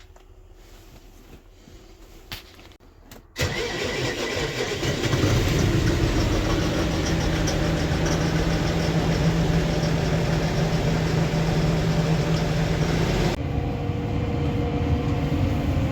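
Tractor diesel engine starting about three and a half seconds in, then running steadily; after about thirteen seconds the sound turns duller and a tone rises slowly.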